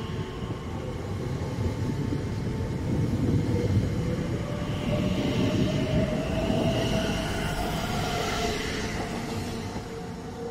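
Class 345 electric train pulling away, its traction motors whining in a rising pitch over the rumble of wheels on the rails, fading near the end as it draws off.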